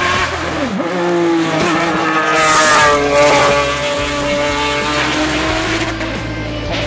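Ferrari GT race car engine working through a hairpin: the note drops sharply as it shifts down under a second in, then climbs as the car accelerates out, loudest a couple of seconds later. It grows fainter as the car pulls away up the hill.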